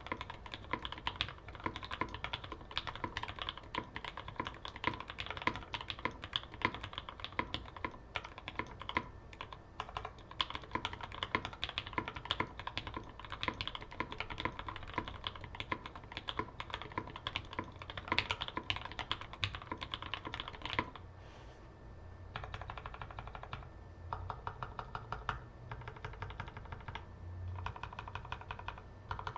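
Custom J-02 mechanical keyboard with Gateron Black Ink linear switches on a carbon fiber plate and GMK Cafe doubleshot ABS keycaps, being typed on fast and continuously. The typing pauses for about a second a little past two-thirds of the way through, then resumes somewhat quieter.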